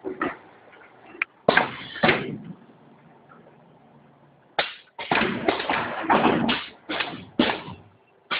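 Automatic bottle filling and capping machine working: a few sharp knocks, then from about five seconds in a quick run of clattering knocks, about three a second.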